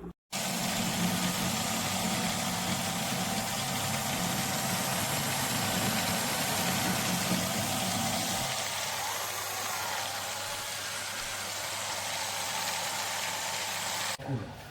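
Small battery-powered personal blender motor running steadily, its blades making a continuous whir over a low hum. About eight seconds in, the low hum drops away while the whir goes on.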